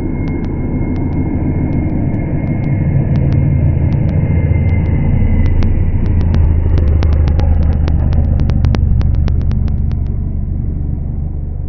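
Volkswagen Polo rally car's turbocharged engine driving past at speed: it is loudest about six seconds in, then fades as the car pulls away. Many sharp cracks and crackles run through it, thickest as the car goes by.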